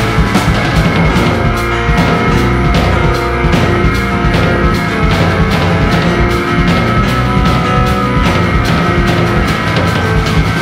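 Instrumental rock track by a keyboard, electric bass and drums trio: piano and keyboards over electric bass and a steady, driving drum beat, playing loud and dense without a break.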